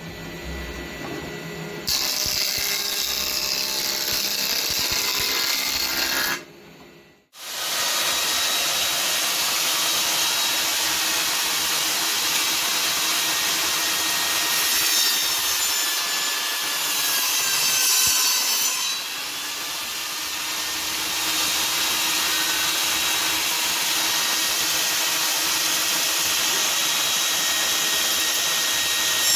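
Table saw ripping cedar boards: a steady, loud cutting noise of the blade through the wood. It becomes loud about two seconds in, drops out briefly a few seconds later, and then runs on steadily.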